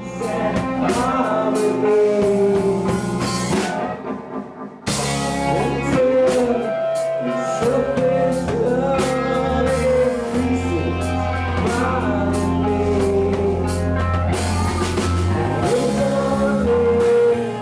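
Grunge rock band playing loud, with electric guitar, drum kit and a singing voice. About five seconds in, the music drops briefly and then starts again abruptly at another point in the song.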